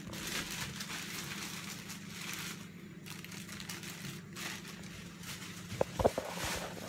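Clear plastic bag crinkling and rustling as hands rummage through it, with a few sharp knocks about six seconds in.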